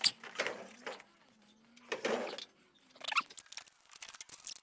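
Irregular handling noises: bursts of rustling and scraping with sharp clicks and light clatter, thickest from about three seconds in.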